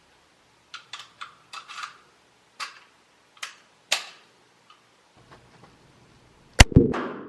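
A run of light, sharp metallic clicks from handling a firearm, then, about six and a half seconds in, a single very loud gunshot whose echo dies away over the next half second.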